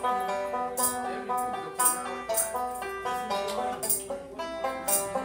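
Live acoustic band music: a banjo plays with a melody of held notes that step in pitch, and a sharp percussion stroke falls about once a second.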